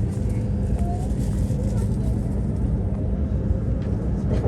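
Joetsu Shinkansen train running, heard from inside the passenger cabin: a steady low rumble with a constant hum.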